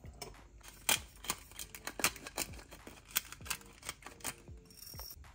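A string of sharp, irregular clicks and taps, about fifteen in five seconds, from hands and utensils at work seasoning raw salmon fillets on a plate.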